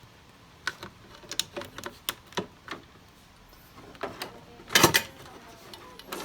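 Metal battery cover of a UPS being handled and fitted back in place: scattered clicks and knocks of sheet metal and plastic, with a louder clatter about five seconds in.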